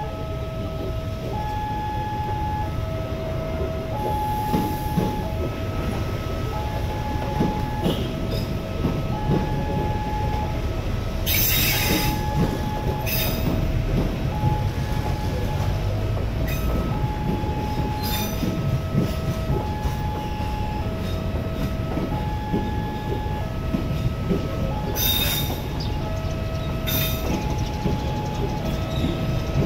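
Level-crossing warning alarm sounding a repeating two-note electronic chime, each note about half a second long, over the low rumble of passenger carriages rolling slowly past as the train pulls into the station. A few short high-pitched wheel screeches come about twelve seconds in and twice near the end.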